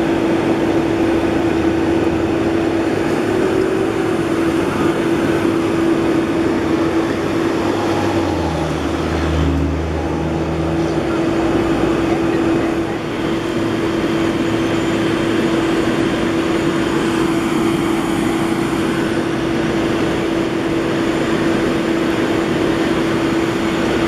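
Fire tanker truck engines running with a steady droning hum, over the steady rush of water pouring from a rear dump chute into a portable drop tank. A deeper engine rumble swells briefly near the middle.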